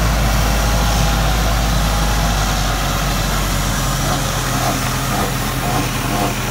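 A 4x4 vehicle's engine idling steadily with a low, even hum.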